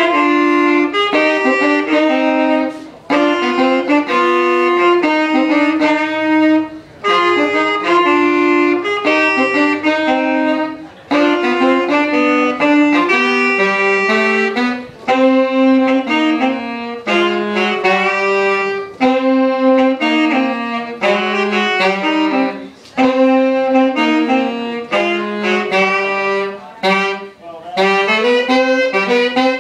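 Two saxophones playing a jazz duet in harmony, in phrases broken by short breath gaps; the tune stops near the end.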